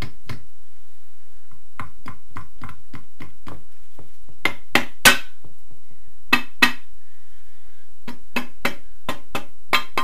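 Rubber mallet tapping the oil pan of a Honda VFR800 engine, in short runs of sharp knocks with a few harder blows about halfway through, to free the unbolted pan from its sealed joint.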